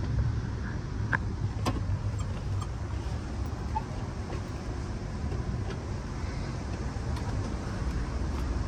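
Steady low rumble of an Amtrak Superliner coach in motion, heard from inside the car, with a few faint clicks near the start.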